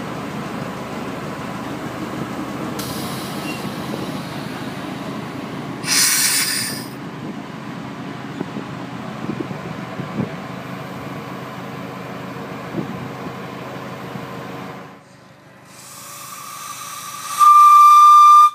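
Ride-on miniature railway train running, with a steady rumble of wheels on the track and a brief high-pitched squeal about six seconds in. Near the end a small steam locomotive blows its whistle, with a puff of steam: one short shrill note that is the loudest sound.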